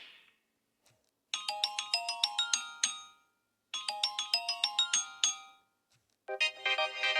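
Built-in LG phone tone playing: a short, bright, marimba-like melody, heard twice with a pause between. Near the end a different, fuller tone starts.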